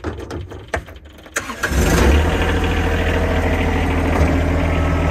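A John Deere 1023E's three-cylinder Yanmar diesel is started: a few light clicks, then a brief crank and the engine catches about a second and a half in and settles into a steady idle.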